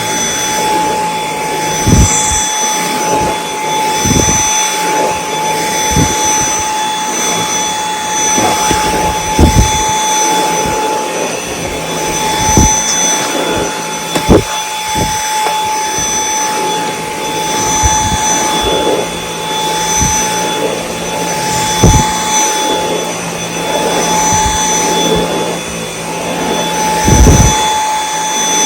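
Dyson V8 Extra cordless vacuum running steadily with a high-pitched whine, with occasional sharp thumps as it is worked over the floor.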